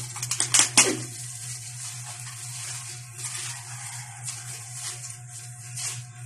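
Black plastic garbage bags crinkling and rustling as they are pulled and torn off wrapped items, a burst of loud crackles in the first second, then softer, irregular rustling.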